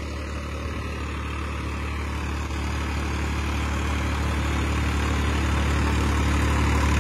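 Farmtrac 60 tractor's three-cylinder diesel engine running steadily under load in third gear while working the soil with the implement lowered, not bogging down. It grows steadily louder as the tractor comes closer.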